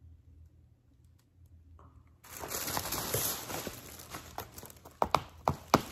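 Tissue paper rustling and crinkling as it is pulled away from a cardboard box, starting about two seconds in and fading after a couple of seconds. Four sharp knocks follow near the end as the box is handled.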